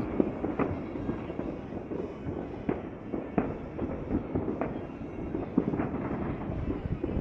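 Fireworks going off: scattered sharp bangs every second or so over a continuous rumble of further explosions.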